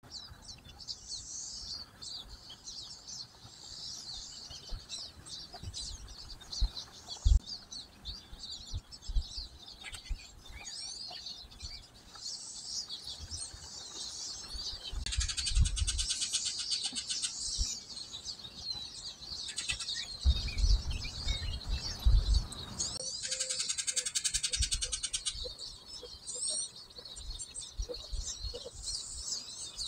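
A chorus of small songbirds chirping and twittering, with a rapid buzzy trill about halfway through and again about three-quarters through. Low thumps and rumble sit underneath.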